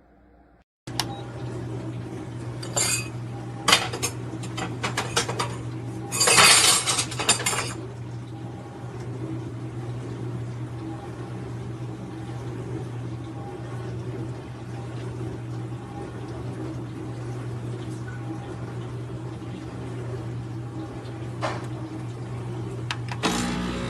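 Neretva 20-bar espresso machine's pump switching on about a second in and running with a steady hum. Clinks and clatters of cup and metal parts come over it for several seconds early, and once more near the end.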